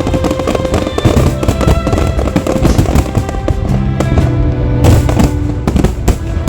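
Aerial fireworks bursting in rapid succession, with steady music playing along with the show and a heavier cluster of bangs about five seconds in.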